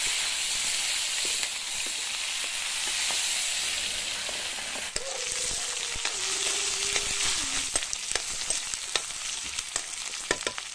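Sliced onions sizzling in hot oil in a kadhai, loudest as they hit the oil at the start and then settling to a steady hiss. Through the second half a metal spoon stirring them scrapes and clicks against the pan.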